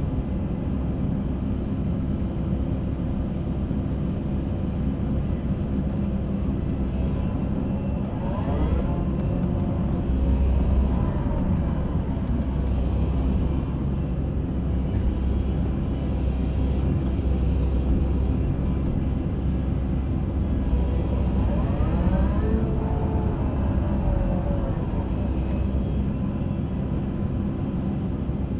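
Concrete mixer running with a steady low machine drone. Twice a higher whine sweeps up and back down.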